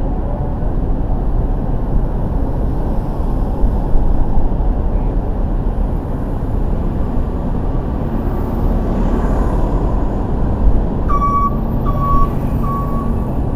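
Steady city traffic and road rumble. Near the end come three short, evenly spaced beeps, typical of a truck's reversing alarm.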